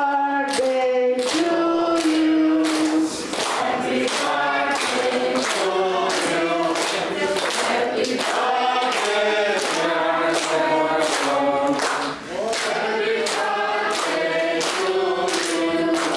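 A group of people singing a song together, clapping along in time at about two claps a second.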